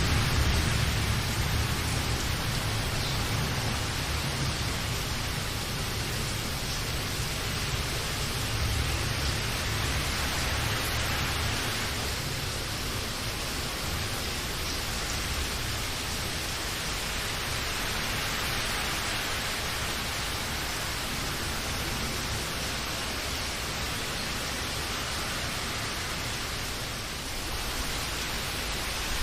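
Steady rain, an even hiss, with a low rumble that dies away over roughly the first ten seconds.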